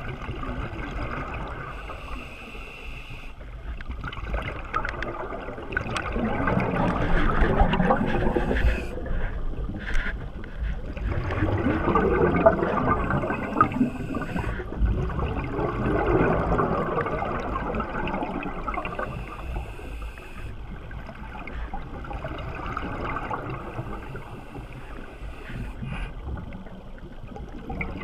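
Underwater gurgling of scuba divers' exhaled air bubbles, heard muffled through the water, swelling and fading every few seconds.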